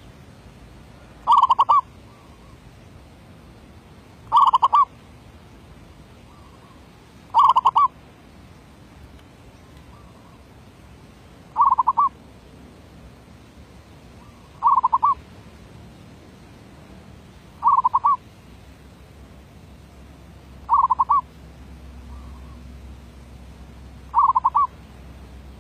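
Zebra dove (merbok) cooing: a short rolling coo repeated about every three seconds, eight times.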